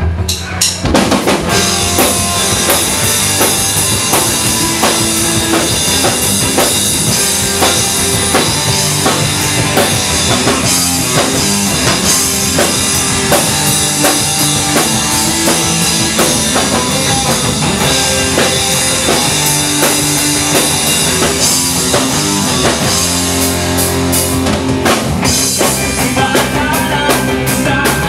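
Live rock band playing loud: drum kit with bass drum, distorted electric guitars and bass guitar. The full band kicks in about a second in, and there is a run of quick, even drum hits near the end.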